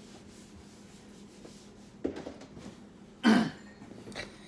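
A person coughs once, briefly, a little past three seconds in, over low room tone.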